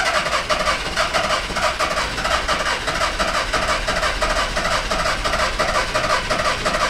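VW Caddy diesel engine being cranked over by the starter motor, an even rhythmic churn of about four beats a second held for around seven seconds. It cranks without catching: a hard-starting engine that will not fire.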